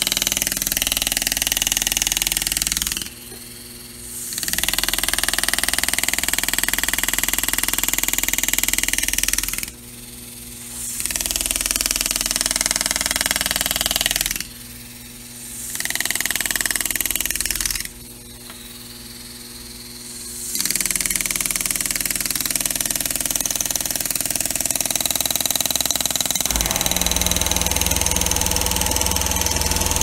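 Pneumatic engraving handpiece buzzing steadily as its graver cuts into a polished metal car door handle, stopping four times for a second or two when the cut pauses. A deeper hum joins near the end.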